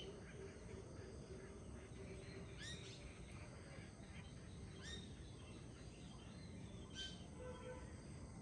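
Faint birdsong in a forest: a few short, sharp calls about two seconds apart, with a few soft notes near the end. Under it runs the steady low rush of a flowing river.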